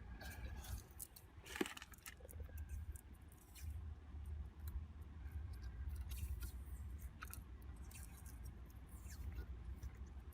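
Faint handling sounds of electrical tape being pulled off the roll and wrapped around a cable connector: scattered small clicks and short peeling rustles, over a steady low hum.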